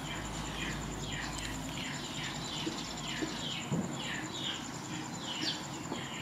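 Small birds chirping: short downward chirps repeated about twice a second, over a steady high-pitched insect trill.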